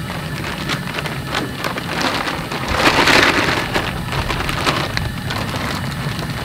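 A plastic protective sleeve crinkling and rustling as a rolled sheet of resin-impregnated liner is pushed into it, with many small crackles, loudest about three seconds in.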